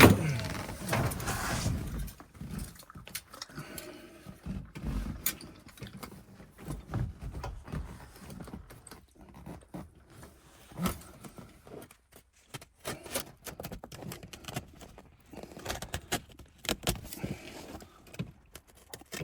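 Hands working inside a car's cabin on a headliner: a loud knock right at the start, then scattered clicks, taps, low thumps and rustling of the material, with a sharper click about eleven seconds in.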